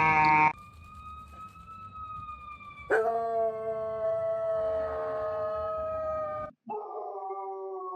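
A dog howling in long, steady held notes: a fainter howl early on, a loud one starting about three seconds in and lasting over three seconds, then after a sudden break another howl near the end.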